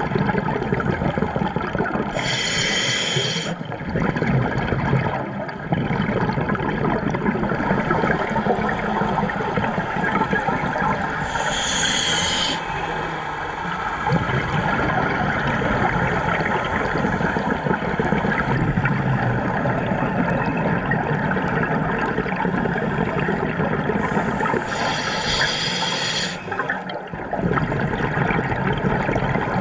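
Scuba regulator exhaust bubbles, heard underwater: three bursts of bubbling roughly ten seconds apart over a steady rushing water noise.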